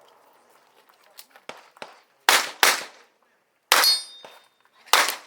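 Revolver shots fired in a practical-shooting stage. Two quick shots come a little over two seconds in, then a shot followed by a brief high metallic ring of struck steel, then another shot near the end.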